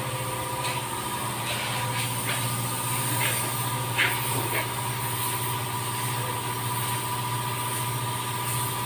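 Compressed-air paint spray gun hissing in short bursts as paint is sprayed onto a car panel, over a steady low machine hum.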